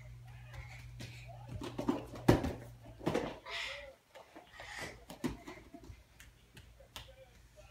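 Thumps and rustles of a child tumbling on a folding vinyl gym mat, the loudest thump a little past two seconds in, followed by lighter taps of bare feet on a wooden floor near the end.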